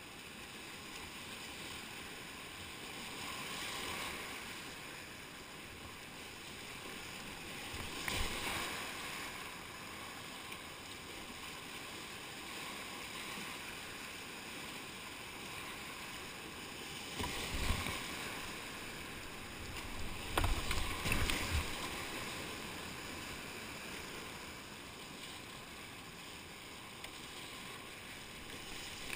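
Whitewater rapids rushing steadily around a kayak, with louder surges of splashing about 8 seconds in, again around 17 to 18 seconds, and in a cluster around 20 to 22 seconds as the boat and paddle hit waves.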